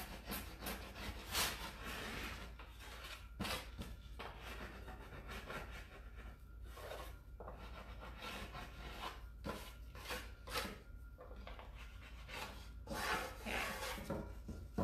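Transfer applicator tool rubbing and scraping over a decor transfer on deeply grooved wood, in short irregular strokes, pressing the transfer down into the grooves.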